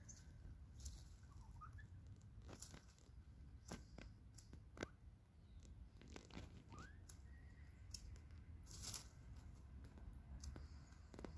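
Near silence with faint scattered clicks and crackles of bantam hens pecking and scratching in a flower bed, and two soft rising chirps.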